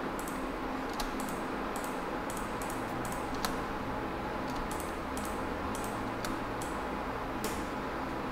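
Irregular clicking of a computer mouse and keyboard, several clicks a second with short gaps, over a steady low hum.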